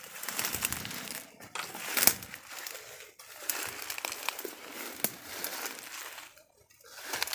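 Dry leaves and brush rustling and crackling as someone pushes through undergrowth on foot, with sharp snaps of twigs; it stops briefly near the end, then starts again.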